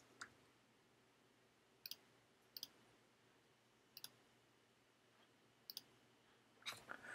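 Faint computer clicks: about five single clicks, one to two seconds apart, with near silence between them.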